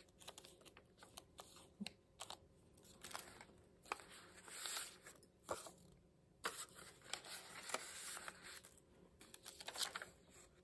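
Faint rustling of paper and card as the pages of a handmade junk journal are turned and its tags handled, with scattered small taps and clicks.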